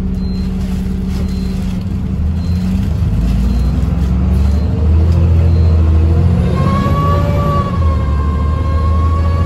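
Optare Olympus-bodied Trident double-decker bus heard from the upper deck, its engine pulling with a heavy low drone. About seven seconds in a high whine comes in, rises a little and holds.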